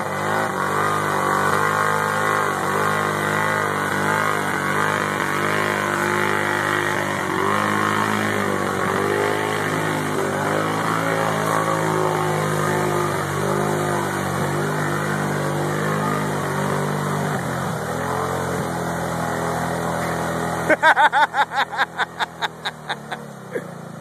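Kawasaki 750 ATV engine held at high revs, its pitch wavering as the quad churns through deep mud. About 17 seconds in the engine note drops. About three seconds later comes a rapid run of loud pulses, five or six a second, close to the microphone.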